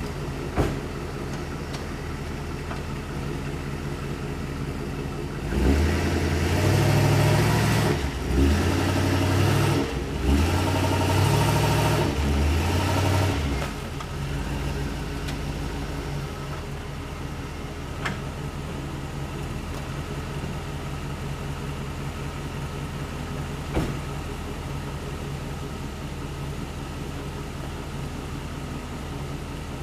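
A Chevrolet Express 3500 van's V8 engine idling, then revving in three surges, each rising in pitch, as the van is backed up onto wooden ramps. It drops back to a steady idle about halfway through, with a couple of faint clicks later on.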